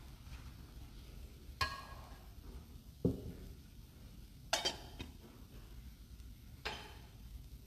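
Metal altar vessels clinking and knocking as they are handled on the altar during the cleansing of the vessels after communion. There are four strokes about a second and a half apart: the first rings briefly, and the second is a duller knock.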